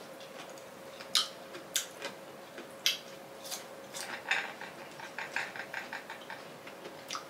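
Close-miked chewing of crisp green mango: a few separate crunches, then a quick run of crunches about four to six seconds in.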